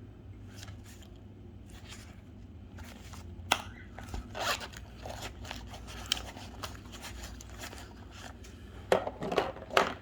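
Hands handling an EDC pouch and the small tools and notebook packed in it: fabric rustling, with scrapes and light clicks. There is a sharp click about three and a half seconds in and a few louder knocks near the end.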